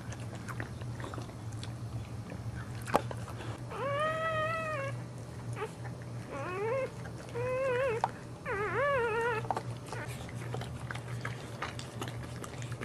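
Newborn boxer puppy crying four times in high, wavering squeals, the first longer and steadier, the later three bending up and down, as the mother licks it clean. Small wet licking clicks run between the cries over a steady low hum.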